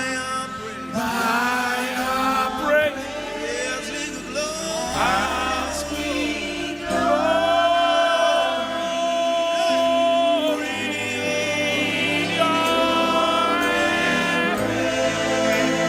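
Gospel worship music: voices singing long, held notes over a steady instrumental backing.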